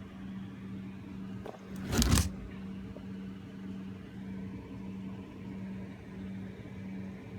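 A steady low hum throughout, with one short, loud, noisy scrape-like sound about two seconds in.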